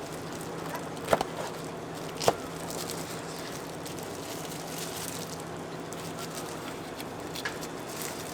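Steady background hum with two sharp knocks, about one and two seconds in, and a fainter knock near the end.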